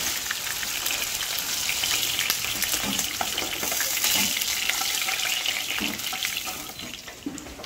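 Hot oil sizzling steadily around battered chicken pieces deep-frying in a kadai, with a few light clicks and scrapes of a steel spoon lifting the pieces out; the sizzle eases slightly near the end.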